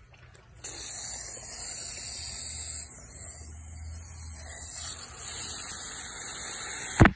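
Water spraying from a hose nozzle onto a bare foot, a steady hiss that starts about half a second in, with a sharp knock near the end.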